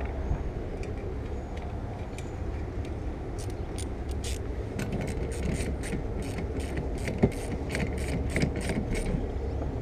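A steady low rumble, with a run of quick, evenly spaced clicks or scrapes, about three a second, starting about three and a half seconds in and stopping near the end.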